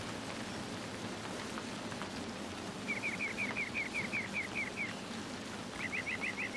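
Steady rain hiss with a bird giving two runs of short high chirps, about five a second, the first in the middle and the second near the end: a rain-and-birdsong ambience recording.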